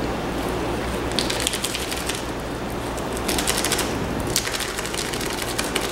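Foil sachet of dry brewer's yeast crinkling as it is shaken and squeezed empty over the fermenter, in several bursts of rapid crackling. This is the yeast being pitched into the cooled witbier wort.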